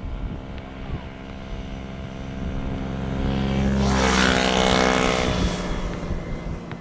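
Airbus A318 jet airliner on final approach flying past low, its engine noise swelling to a loud peak with a rushing hiss about four seconds in. The engine tones then drop in pitch as it passes.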